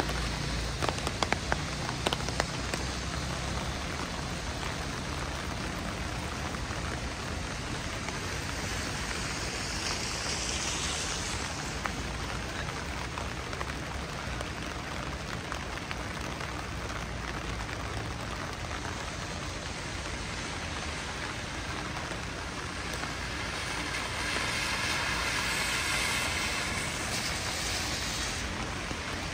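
Steady rain falling on a city street, an even hiss with louder swells about ten seconds in and again near the end.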